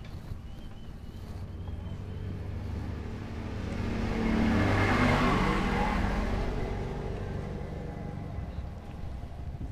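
A motor vehicle passes by on the road, its engine and tyre noise swelling to a peak about five seconds in and then fading away.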